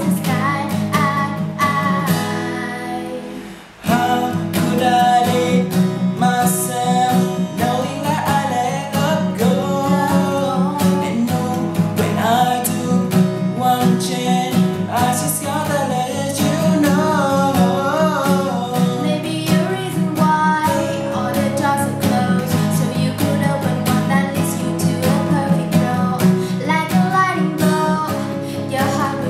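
Guitar strumming with a singing voice. The sound falls away briefly about four seconds in, then comes back at full level.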